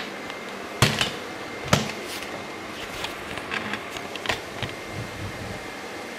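Camera handling noise: two sharp knocks about a second apart, then a string of lighter clicks and taps as the camera is moved and set down, over a steady kitchen hum with a faint high whine.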